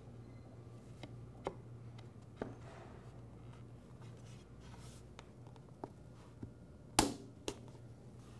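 Light wooden taps and knocks as a board is pushed and worked into a snug-fitting dado cut in a scrap piece, with the sharpest knock about seven seconds in and another just after; a low steady hum runs underneath.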